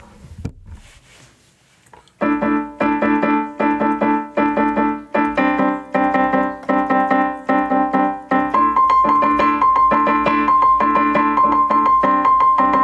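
Piano playing a string-quartet passage reduced to the keyboard: chords repeated in a steady pulse of about three a second, starting about two seconds in, with a high note sounding steadily above them from a little past the middle.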